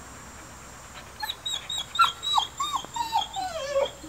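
Dog whining in a run of short, high-pitched whimpers starting about a second in, ending in a longer falling whine.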